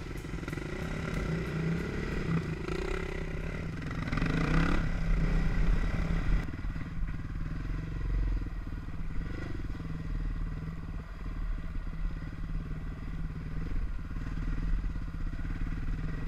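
Red Honda dirt bike's engine running under way on a trail, revving up and down through the first several seconds, then running steadily after a sudden change about six and a half seconds in.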